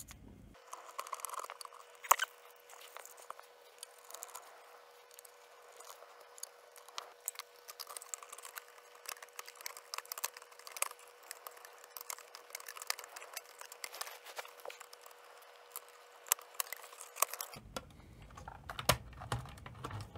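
Scattered small clicks and taps of metal parts being handled as the finned rear heatsink panel of a Sony SL-C9 Betamax is worked back onto its chassis, with one sharper click about two seconds in.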